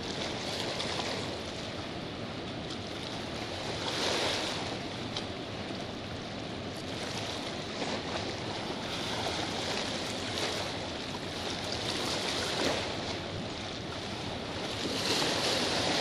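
Steady roar of the Rhine Falls, a broad waterfall 150 m wide, with pounding water and spray. It swells briefly louder about four seconds in and again near the end.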